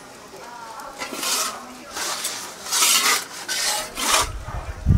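Metal pizza peel scraping across the floor of a wood-fired oven in several short rasping strokes about a second apart. A low rumble starts near the end.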